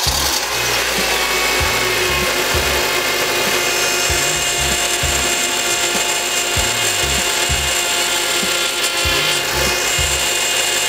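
A 2007 Acura TSX's 2.4-litre four-cylinder engine idling just after starting, with a steady whine and a low pulsing about twice a second from the engine bay. The noise comes from the power steering pump, which the owner takes for a pump needing replacement, though air in the system could also cause it.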